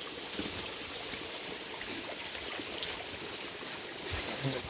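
Small forest creek trickling and running steadily, with a soft knock a little after four seconds in.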